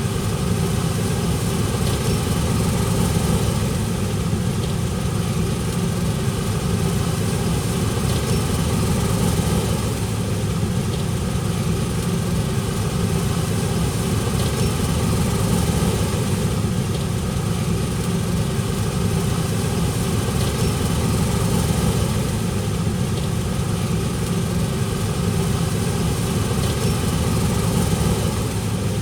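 An engine running steadily at a constant pitch, with no change in speed.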